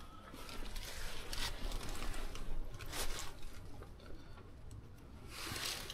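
Small clicks and scraping from hands working at the valve of a flat tyre on a Trabant 601's steel wheel, with a short burst of hiss about five and a half seconds in.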